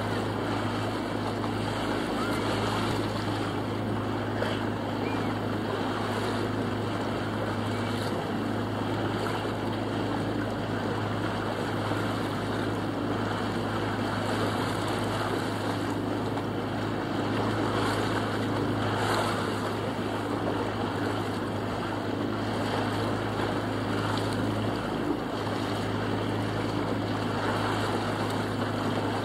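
Boat engine running steadily underway with an even low hum, over the wash of water along the hull and wind on the microphone.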